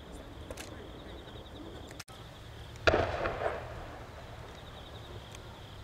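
Fireworks display: one sharp bang about three seconds in, trailing off over about half a second, over a steady low background.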